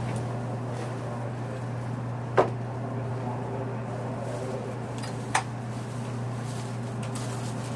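Steady low hum inside a stationary Series 783 electric train car waiting at the platform, with two short sharp clicks about three seconds apart.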